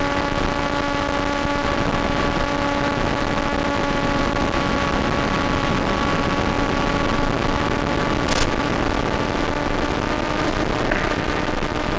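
Blade Theory Type W race wing's brushless electric motor and propeller whining at a steady pitch, heard through the onboard FPV camera's microphone over the video link with a dense hiss behind it. The pitch shifts slightly near the end, and there is one short crackle about eight seconds in.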